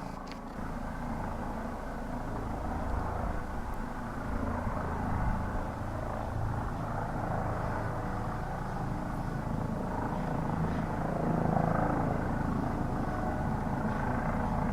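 Helicopter running steadily, rotor and engine noise growing slightly louder toward the end.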